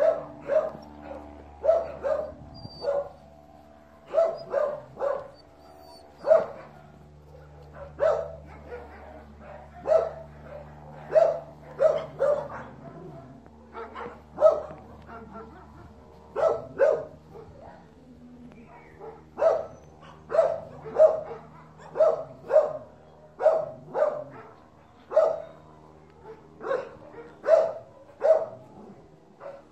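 A dog barking repeatedly, single barks and quick runs of two or three, about one to two a second with short pauses between runs.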